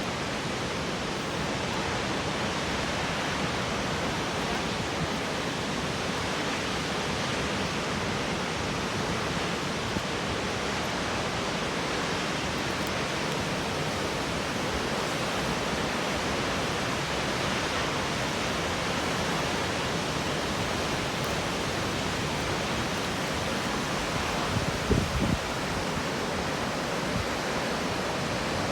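Shōmyō Falls, a very high plunging waterfall, giving a steady, even rush of falling water. A brief low thump near the end.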